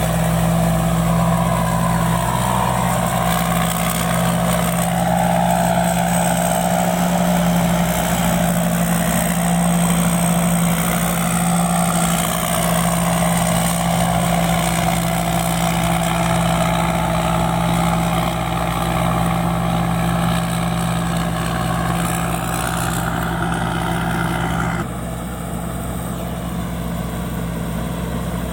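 Pan Charoen combine harvester running steadily under load while harvesting rice, its engine note holding even; near the end the sound drops suddenly to a lower, duller level.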